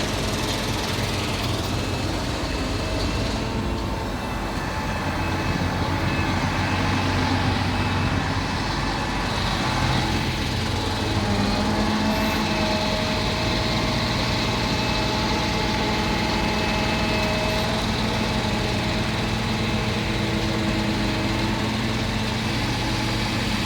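Excavator's diesel engine running steadily as it works its hydraulics; its pitch shifts slightly about ten seconds in.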